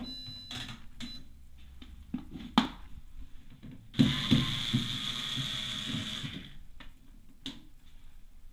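Atlant washing machine drain pump starting up with a rattling, grinding noise for about two seconds and then stopping, with separate clicks before and after: the pump is jamming.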